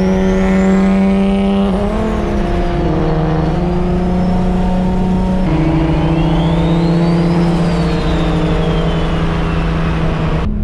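Infiniti G37 coupe's single-turbo VQ37HR V6 on full-throttle pulls. A turbo whine climbs to a high whistle and drops away twice, at each shift, over a steady engine drone through the Tomei exhaust.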